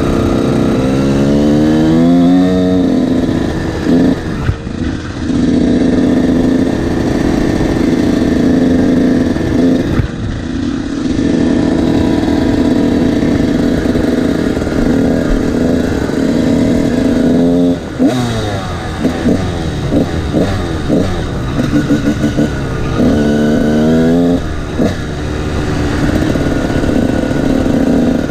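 Honda CR125 two-stroke dirt bike engine on the move. It rises in pitch through quick gear changes in the first few seconds and then holds a steady cruise. From about two-thirds of the way in it rises and falls rapidly as the throttle goes on and off and it shifts up again.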